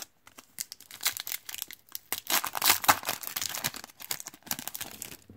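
Foil wrapper of a Panini Prizm football card pack crinkling and tearing as it is ripped open by hand, a dense crackling that is loudest around the middle.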